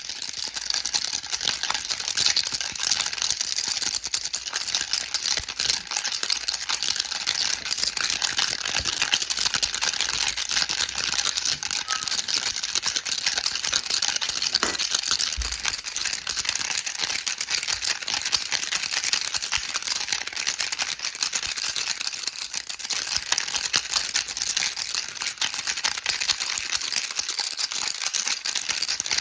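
Baby rattle shaken without pause: a dense, rapid patter of small pellets clicking against a hard shell, with no rhythm or break.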